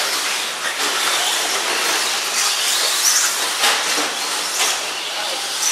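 Radio-controlled 2WD short course trucks racing on a dirt track: a steady hissing noise, with a few sharp knocks.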